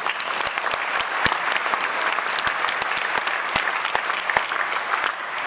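Audience applauding, many hands clapping, easing off near the end.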